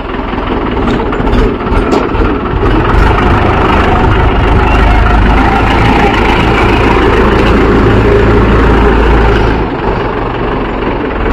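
Mahindra 415 DI tractor's four-cylinder diesel engine running close by. Its low rumble grows heavier through the middle and eases off near the end.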